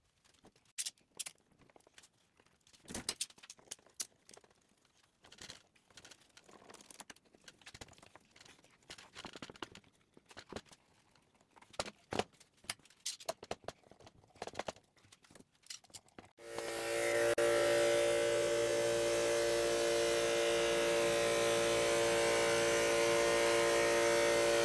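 Quiet, scattered taps and clicks of wood strips and a clamp being handled on a plywood board. About two-thirds of the way in, a drum sander cuts in suddenly, running loud and steady with a constant hum and hiss as a glued-up panel of wood strips feeds through it.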